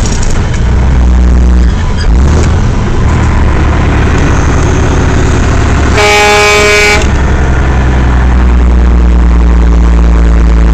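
A Western Star semi truck's air horn sounds one blast of about a second over the steady drone of the truck's diesel engine, heard from inside the cab.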